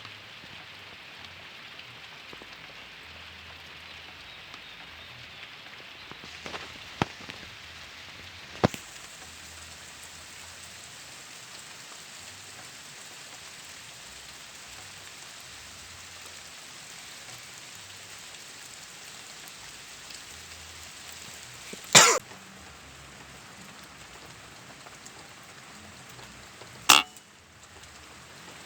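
Steady rain falling, an even hiss. A few short sharp sounds cut through it, two louder ones about two-thirds of the way in and near the end.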